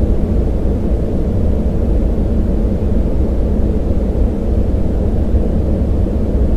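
Synthetic yellow noise: a steady, soft, deep noise with a boosted band around 200 Hz and almost nothing in the high end, sounding a bit like being inside a giant seashell or a jet cabin in flight. It holds the same level without any change.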